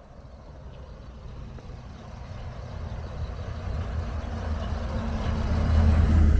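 Small bus approaching along the road and passing close by, its engine growing steadily louder and loudest as it goes past near the end.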